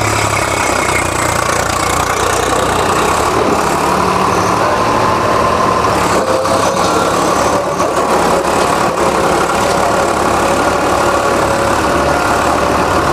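Swaraj 735 FE tractor's three-cylinder diesel engine running steadily under load, its rear tyre churning up dirt as the tractor turns in place on one wheel.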